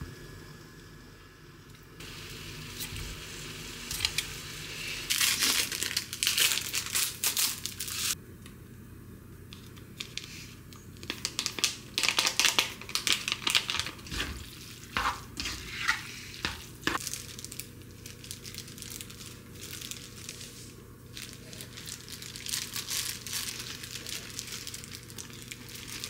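Irregular crinkling and rustling of plastic, from a sauce packet being squeezed and disposable plastic gloves being handled. A few sharp clicks come in the middle.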